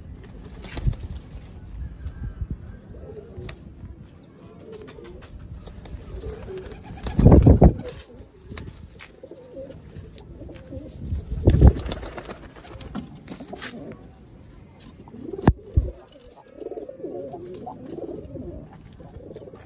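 Domestic pigeons cooing in repeated soft, wavering calls. Two loud low bursts about seven and eleven seconds in, and a sharp click near the end.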